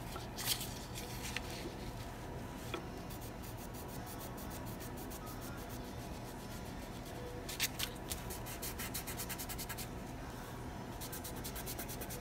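Pencil scratching on painted paper as marks are drawn: a few single strokes, then a run of quick back-and-forth strokes about eight seconds in.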